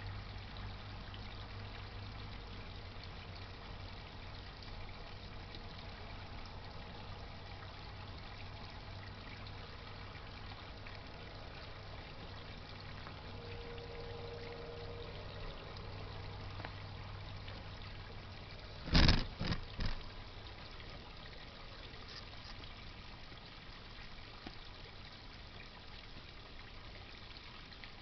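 Pond pump water trickling and splashing steadily, with a low hum under it that fades out past the middle. About two-thirds of the way in comes a sudden loud cluster of two or three knocks.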